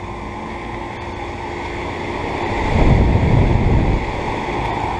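Outdoor central air conditioner condensing units running with a steady hum and a thin steady tone. About two and a half seconds in, a low rush of wind on the microphone swells up for over a second and then eases back.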